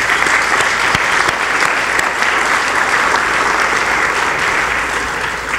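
Audience applauding, a steady dense clapping that begins to thin out near the end.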